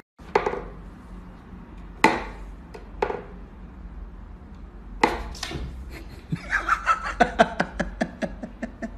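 Wooden whack-a-mole cat toy knocking and clacking as its pegs are pushed and the cat pats at the holes: a few single sharp knocks, then a quick run of clicks, several a second, near the end.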